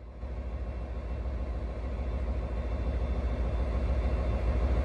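West Coast Railways Class 57 diesel locomotive 57314, with its EMD two-stroke V12 engine, running as it draws slowly along the platform at the head of a train. It is a deep rumble that grows steadily louder as the locomotive comes nearer.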